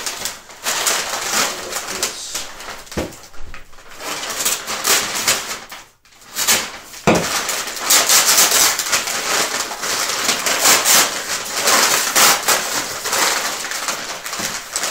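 Plastic packaging crinkling and rustling in dense crackles as items are rummaged out of a shipping box, with a brief pause about six seconds in.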